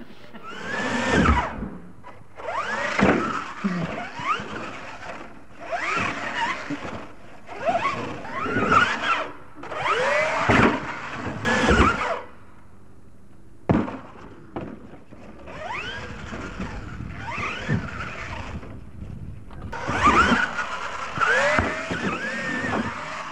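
Radio-controlled monster truck's motor whining up and down in repeated bursts of throttle, with dull thuds as the truck lands and bounces on the dirt. The throttle drops off for a second or so about halfway through, then the bursts start again.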